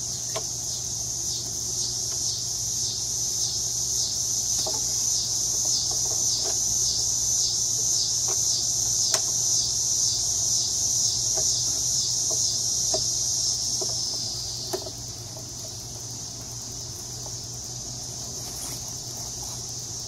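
Loud, high insect buzz pulsing a few times a second, which fades down about three-quarters of the way through. Under it, a few faint clicks and knocks as the motorcycle's front wheel is worked into place between the fork legs.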